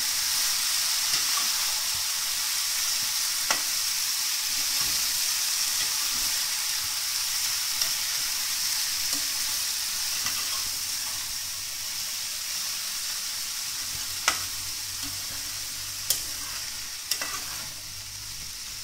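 Chopped bottle gourd sizzling in hot oil in a frying pan as it is stirred with a metal spatula. The steady sizzle eases off slightly toward the end, and a few sharp clicks of the spatula against the pan come through it.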